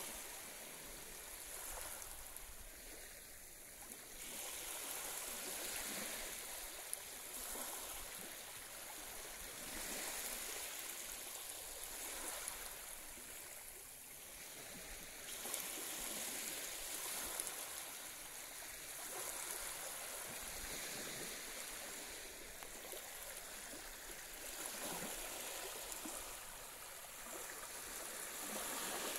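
Small, gentle waves lapping and washing up onto the beach: a soft hiss of water that swells and fades every few seconds.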